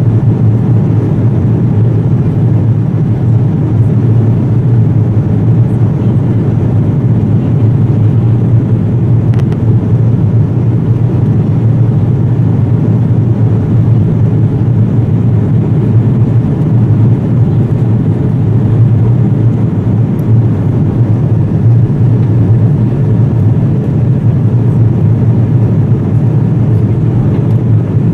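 Cabin noise inside an Airbus A330-200 airliner during the climb: the steady, loud low rumble of the engines and the air rushing past the fuselage.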